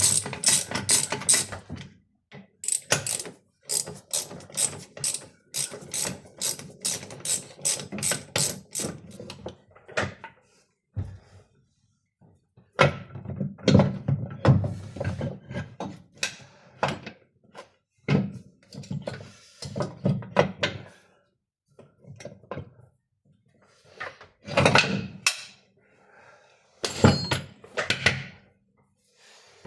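Old tram's repaired gear shifter being worked through its positions: runs of rapid ratcheting clicks, then heavier mechanical clunks and knocks.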